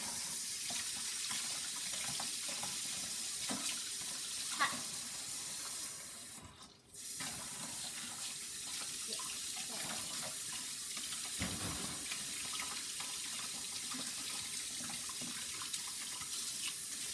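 Water running from a tap into a sink in a steady hiss. It cuts off for about a second roughly a third of the way through, then runs again.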